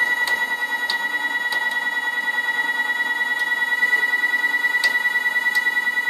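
A 570 oz-in stepper motor driving the sawmill head down through a 40:1 gearbox and chain, making a steady high-pitched whine with a few light ticks. The setworks is homing the head to its bottom stop at 1 inch, and the head moves slowly.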